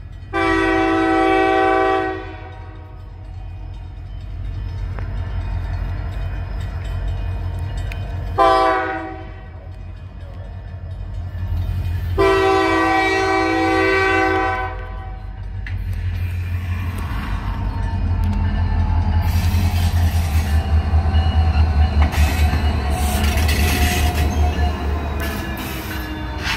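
Norfolk Southern diesel locomotive's air horn sounding for a grade crossing: a long blast, a short blast, then another long blast. Afterwards the locomotive's diesel engine rumbles louder as it draws near and passes, with a slowly falling whine and clicks of wheels over the rail joints near the end.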